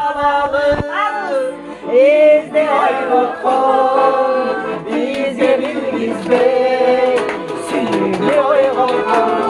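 Accordion playing steady chords under a song sung by a woman and a man together.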